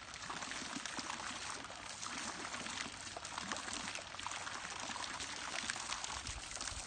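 A thin jet of water spraying from a nozzle in a pool deck and splattering onto wet concrete: a steady hiss, broken up as a puppy snaps at the stream.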